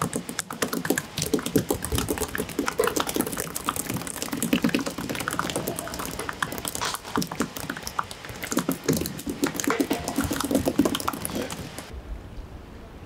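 Whole mackerel slapping and tapping on a wet plastic cutting board: a rapid, irregular run of wet slaps and clicks. About twelve seconds in it gives way to faint steady wind noise.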